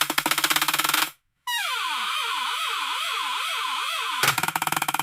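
Synthesized electronic sounds. A fast buzzing pulse stops about a second in. After a brief gap, a warbling tone slides up and down about twice a second, and the fast pulse returns near the end.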